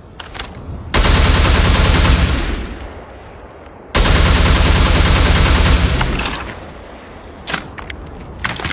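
AR-15-style rifle sound effect firing two long bursts of rapid automatic fire, each about a second and a half, with a fading echo after each. A few sharp separate clicks follow near the end.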